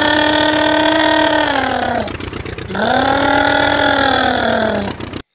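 Engine sound effect on a toy construction vehicle: a steady buzzing motor hum with a fast pulse. It winds down in pitch and stops about two seconds in, then starts up again rising, runs steadily, and winds down again before cutting off just before the end.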